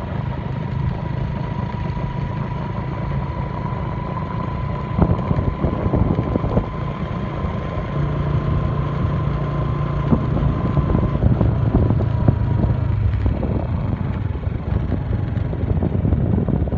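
Motorcycle engine running at a steady cruise, heard from the rider's seat, with a faint high steady whine that fades out about eleven seconds in.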